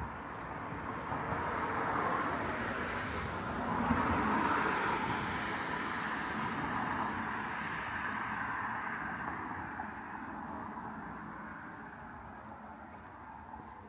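A car driving past on the street, its tyre and engine noise swelling over the first few seconds and fading away toward the end.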